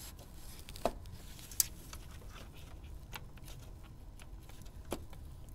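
A few sharp plastic clicks, about four spread out, the loudest a little over a second and a half in, as a DDR4 memory slot's retention latch is pressed open and the module released under a gloved hand. A faint low hum runs underneath.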